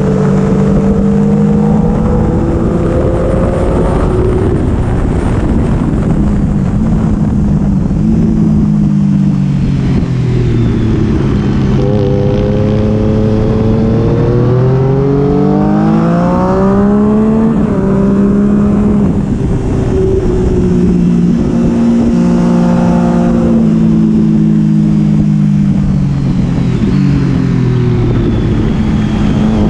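Sport motorcycle engine heard onboard at track speed. The revs climb in several steps through upshifts and drop away under braking for corners, over steady wind rush.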